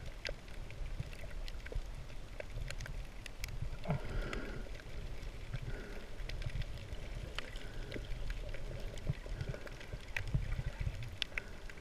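Shallow-water underwater ambience as heard through a camera's waterproof housing: a muffled low rumble of wave surge with scattered sharp clicks, and a brief gurgle about four seconds in.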